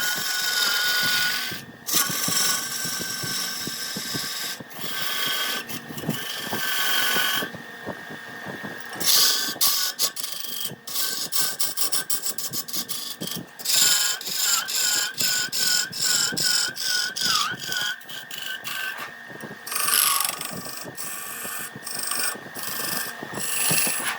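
Wood lathe running while a turning tool cuts into the spinning wood: a steady high whine with hissing, scraping shaving noise that breaks off and resumes abruptly many times.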